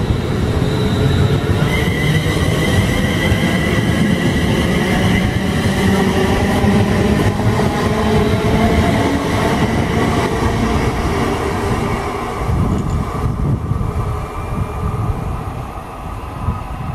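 Two coupled Class 350 Desiro electric multiple units running past on the track, a loud rumble with a whine of several steady tones over it, fading away after about twelve seconds as the train pulls into the distance.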